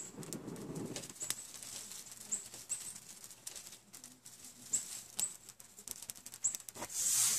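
Burning tinder crackling and rustling as it is handled over a small perforated metal can, with many small irregular ticks. There is a short rush of noise about seven seconds in.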